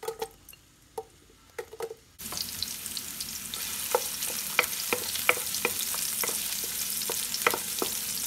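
A few light knocks as sliced onion pieces drop into a wok. From about two seconds in, onions sizzle steadily in hot desi ghee, with sharp clicks as a wooden spoon stirs them against the pan.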